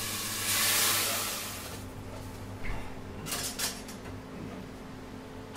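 A pan on a gas range hissing and sizzling, swelling loudly for about a second before dropping away. A few light clinks of pots and utensils follow.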